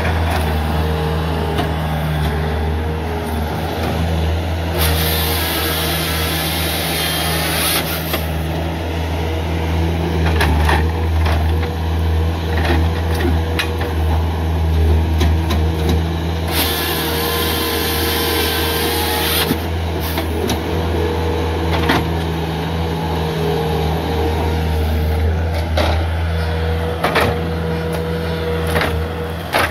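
Bobcat S300 skid steer's diesel engine running steadily under hydraulic load as it works a GSR-55 grapple saw. About five seconds in and again about seventeen seconds in, a high-pitched rasp lasting about three seconds rises over the engine: the saw's chain cutting through a log.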